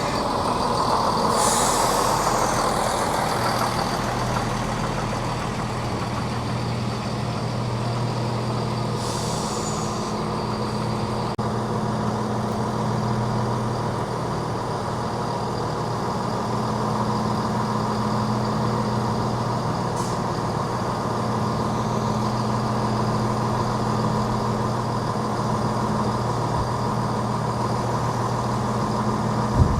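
Train standing at the platform with its engine or on-board equipment idling steadily in a low hum. Two short hisses of air, about a second and a half in and again around nine seconds, are typical of air brakes.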